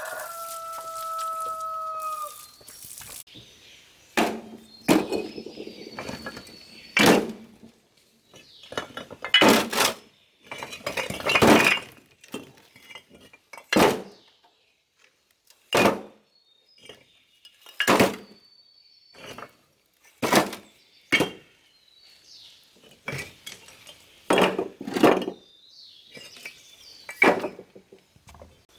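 A rooster crows until about two seconds in. Then comes a series of sharp knocks and clinks of hard material being struck, one every second or two, some doubled.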